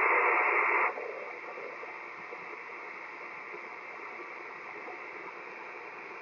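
Radio receiver's speaker hissing with static: a louder rush for about the first second, then a steady, fainter hiss of band noise with no voice coming through.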